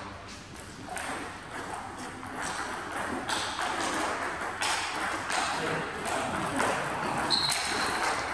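Table tennis balls clicking and bouncing in irregular, scattered ticks, with a brief high squeak about seven seconds in.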